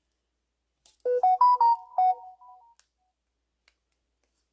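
A short electronic alert melody of about six quick notes, rising and then falling, lasting about a second and a half and starting about a second in. A few faint clicks sit around it.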